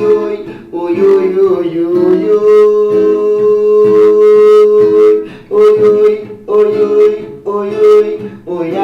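Music: strummed acoustic guitar in a steady rhythm under a melody line that holds one long note in the middle.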